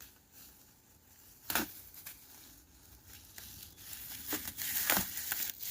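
Packaging being handled: crinkling and rustling that grows busier toward the end, with a sharp knock about a second and a half in and another about five seconds in.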